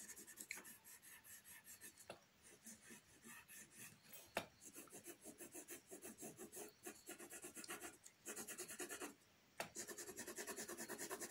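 A 10B graphite pencil shading on paper: quick back-and-forth strokes rubbing and scratching, faint. The strokes stop briefly near the end, then come back quicker and more even.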